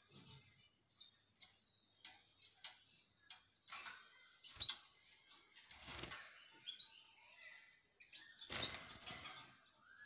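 Caged canaries giving short, faint chirps, among scattered small clicks and rustles of birds moving about the cage.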